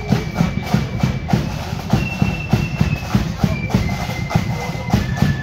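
A marching procession passing: many feet stepping on the road with crowd murmur, over a band's melody of long high held notes.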